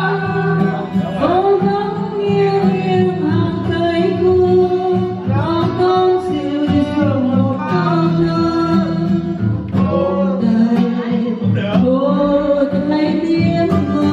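A woman singing a song into a handheld microphone, her voice amplified, with acoustic guitar accompaniment.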